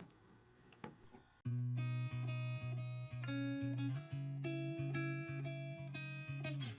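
Background music of plucked guitar with a steady bass line, starting suddenly about a second and a half in. Before it, a few faint clicks from handling things.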